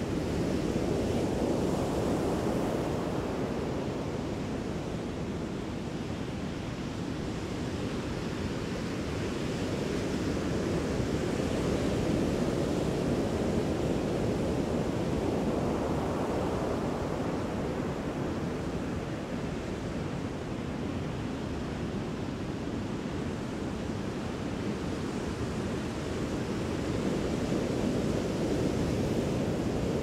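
Ocean surf: a continuous low rush of breaking waves that slowly swells and eases every several seconds.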